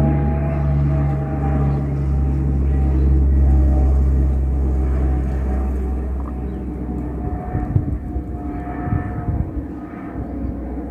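Propeller drone of a Qantas De Havilland Canada Dash 8 turboprop climbing out overhead after takeoff: a steady low hum with higher steady tones, loud at first, fading from about halfway as the aircraft moves away.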